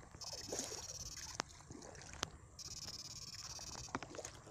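Feet wading and splashing through shallow water, with a high-pitched electrical buzz from a backpack electrofishing shocker cutting in and out as it is switched on and off to stun fish. A few sharp clicks.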